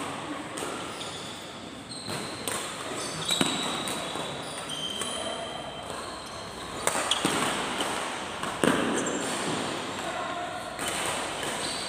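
Badminton doubles rally: sharp racket strikes on the shuttlecock at irregular intervals, with short high squeaks of court shoes on the mat between them.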